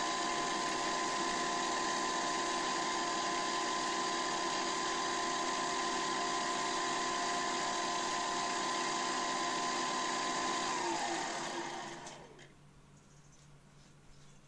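Milling machine spindle running with a slot drill cutting an aluminium dropout: a steady whine made of several tones. About eleven seconds in the motor stops and winds down, its pitch falling, leaving only a faint low hum.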